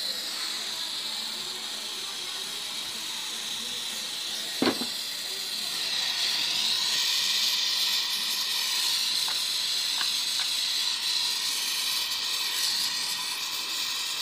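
Gas brazing torch hissing steadily while brazing a copper discharge pipe onto a refrigerator compressor, the hiss growing a little louder about halfway through. A single short knock sounds about four and a half seconds in.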